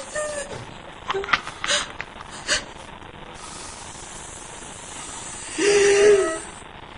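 Binaural horror sound-effect track: a steady hiss with a few short clicks in the first two and a half seconds, then one brief held vocal sound about six seconds in.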